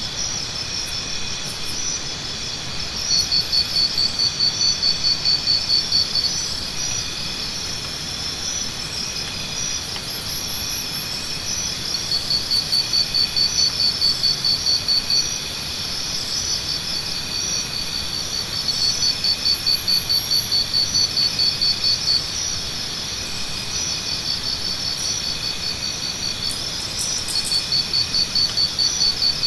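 Jungle insect chorus: a steady, high chirring of several insects, with a loud, rapid pulsing trill that comes in for about three seconds at a time, four times.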